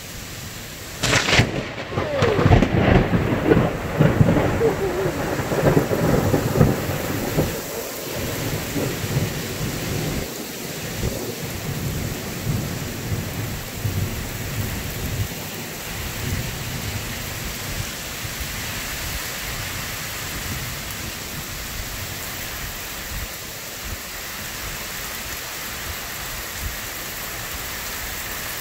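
A thunderclap: a sharp crack about a second in, then a crackling rumble that rolls on for several seconds and slowly dies away, over steady rain.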